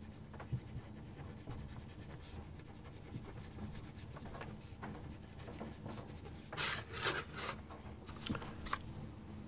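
Faint scrubbing of a cotton swab on a plastic model flat car part, cleaning off tape residue with alcohol, with small ticks of handling. About seven seconds in, a short cluster of sharp clicks and rustles as the swab is dabbed on the pump top of an alcohol dispenser bottle.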